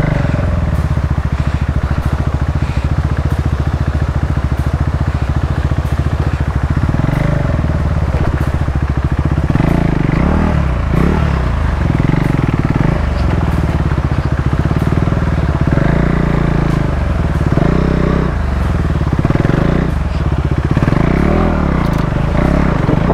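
KTM 390 Adventure's single-cylinder engine running under load. It is steady for the first several seconds, then revs up and down repeatedly from about seven seconds in.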